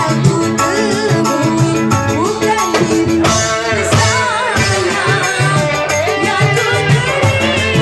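Live dangdut music, loud and continuous: an electric keyboard playing a wavering melody over a steady hand-drum beat.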